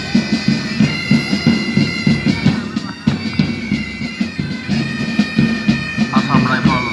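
Military pipe band playing: bagpipes sounding a melody over their steady drone, with a regular drumbeat underneath.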